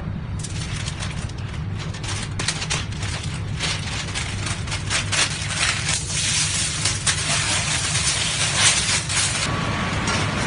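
Paper and aluminium foil crinkling and rustling in dense, irregular crackles as they are folded by hand around a cut of meat, over a steady low hum. The crackling stops shortly before the end.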